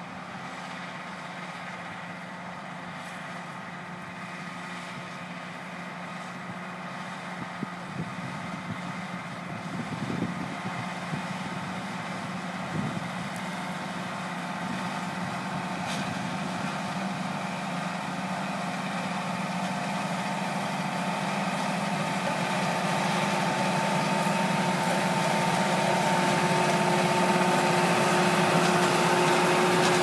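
John Deere 7230R tractor pulling a John Deere 1433 large square baler at work, its engine and the baler running steadily and growing louder as the outfit approaches and passes close by. A few short knocks sound about a third of the way in.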